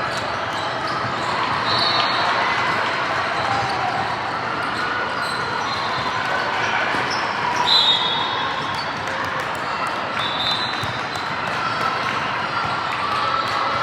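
Basketball game sounds in a gym: a ball bouncing on the court and background voices, with a few short high squeaks, the loudest about eight seconds in.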